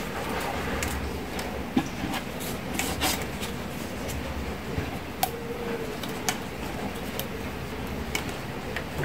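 Plastic drinking straws being handled and fitted together: rubbing and rustling with scattered sharp clicks and taps, over a steady low hum.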